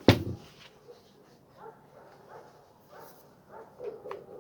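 A sharp knock right at the start, then faint clicks and handling sounds as the angle grinder's housing is put back together and its screws are set.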